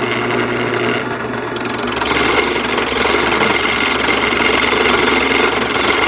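Drill press spinning an end mill, used as a makeshift milling machine on a metal part. About two seconds in the cutter bites harder and the sound grows louder and harsher, with a steady high-pitched squeal over the motor's hum.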